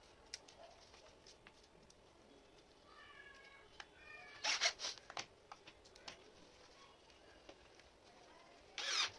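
Scattered clicks and handling noise from a wooden slatted bed base and its strap being worked by hand, with two louder scraping rustles, one about four and a half seconds in and one near the end. About three seconds in there is a brief string of high, squeak-like tones.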